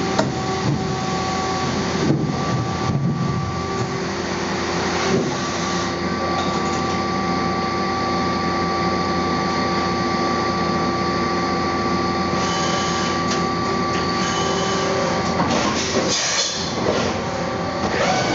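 5-axis CNC milling machine running with coolant spraying, starting to mill a 303 stainless steel putter head. A steady hiss carries a whine that holds a fixed pitch from about four seconds in. The whine breaks off about sixteen seconds in, when the sound turns unsettled.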